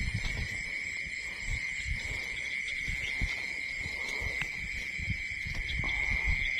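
Insects chirring in a steady, unbroken high-pitched drone, with scattered low thuds and rustling close to the microphone.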